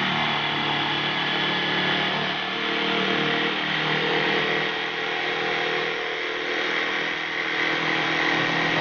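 Electric jigsaw running steadily as it cuts a curve through an MDF board.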